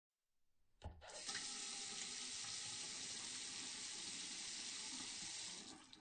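A click just under a second in, then water from a sink tap running steadily into the basin. The flow stops near the end.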